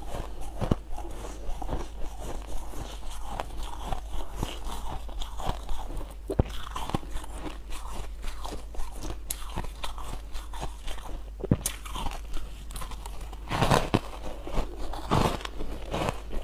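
A person biting and chewing chunks of frozen ice close to a clip-on microphone: a steady run of crisp crunches, with the loudest bites near the end.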